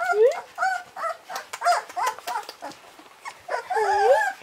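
Newborn puppies whining and yelping: a quick series of short high squeaks, then a longer wavering whine near the end.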